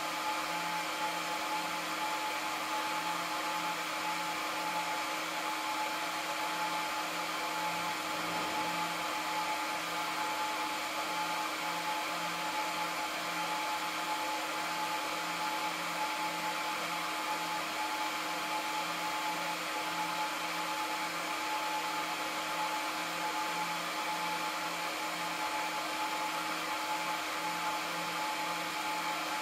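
Cooling fans of an Aruba S3500-48P PoE switch running steadily while it boots: an even rushing hiss with a steady whine and a low hum that pulses in an even rhythm.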